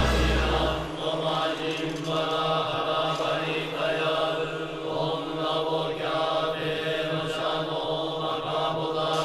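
A sustained chanted drone: voices holding one low pitch with rich overtones, without words or breaks. A deep low hum underneath cuts off about a second in.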